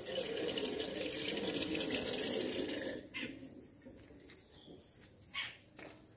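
Water running from a wall tap into a basin for about three seconds, then shut off. A few short toothbrush strokes on teeth follow near the end.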